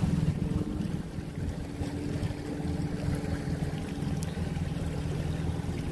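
Dinghy outboard motor running steadily, a low hum, with water and wind noise.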